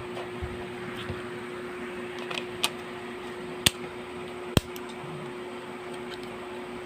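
Three sharp little clicks, a second or so apart, from small plastic computer-mouse parts being handled, over a steady hum.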